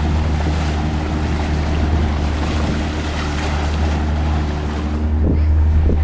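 Pontoon boat's motor running steadily under way, with wind and water rushing past.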